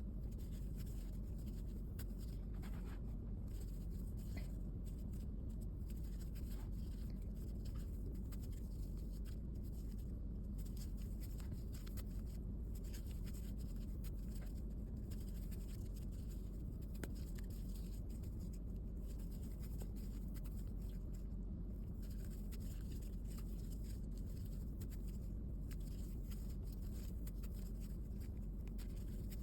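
Faint scratchy rustling of a crochet hook working thick t-shirt yarn, with scattered soft ticks, over a steady low hum.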